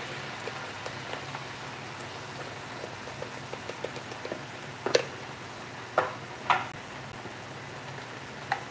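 Diced chicken and bell peppers sizzling steadily in a frying pan. A run of light ticks about halfway through and a few sharp clicks follow as seasoning shakers are handled over the pan.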